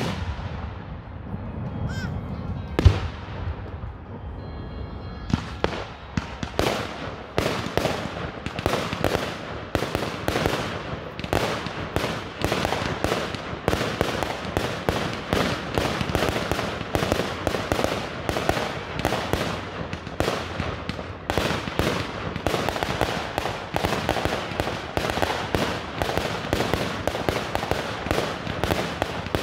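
Fireworks going off: two single booms in the first few seconds, then from about five seconds in a dense, continuous barrage of rapid bangs and crackles, several a second.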